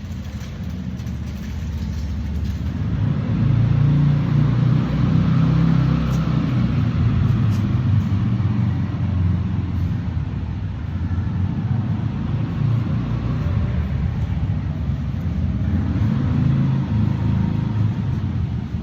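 A big motorcycle on the move: a steady low rumble that grows louder about four seconds in and stays up, easing a little near the end.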